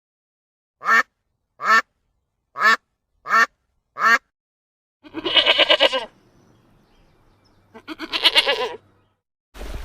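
Farm animal calls: five short calls spaced about a second apart, then two longer, rapidly pulsing calls of about a second each.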